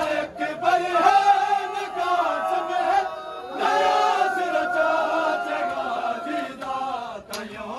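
Men's voices chanting a noha, a Shia mourning lament, together in long held sung lines. The chant drops briefly about three seconds in.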